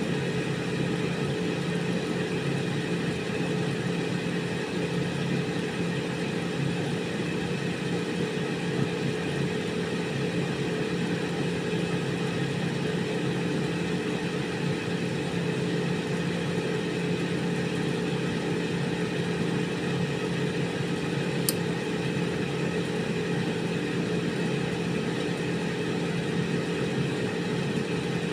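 Air fryer running: a steady hum of its fan motor with the rush of circulating air, unchanging throughout.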